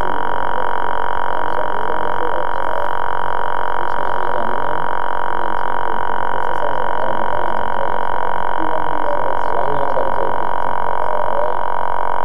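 Drone helicopter's motors and propellers running steadily with a constant whine, heard close up from the drone's own camera while it sits on the floor. Faint voices can be heard underneath.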